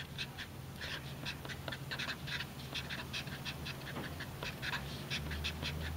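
Felt-tip marker writing on paper: a run of short scratchy strokes, several a second, as letters are written out. A faint steady low hum runs underneath.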